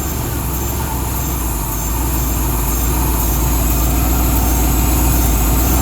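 1996 Ford F250's 5.8-litre V8 running steadily, getting a little louder about two seconds in. It is kept running on sprayed starting fluid because of a bad fuel pump.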